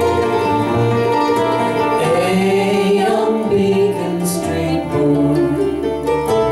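Live acoustic folk band playing a song: acoustic guitar, mandolin, keyboard and bass, with held sung voices over them.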